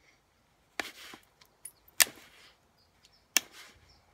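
Pressure flaking a Kay County chert biface: three sharp snaps, roughly a second apart, as the pressure flaker's tip pops flakes off the edge, each followed by a brief scratch of the tool on the stone.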